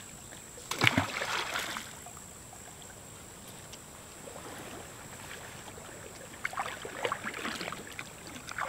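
Water splashing at the river's edge in two spells: a short burst about a second in, and a run of smaller splashes over the last two seconds.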